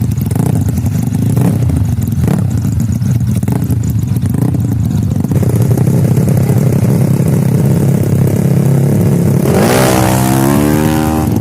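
Drag-tuned Yamaha Mio scooter engine running with a low, uneven rumble, then revved hard near the end, its pitch climbing quickly.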